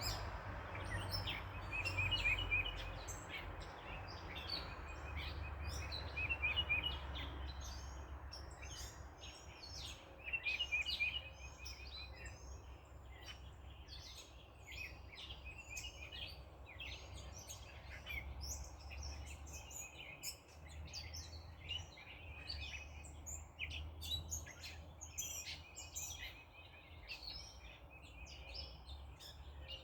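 Backyard birds chirping, many short calls overlapping, with a short trill repeated several times. Beneath them runs a steady low rumble, and a broad hiss in the first several seconds fades away.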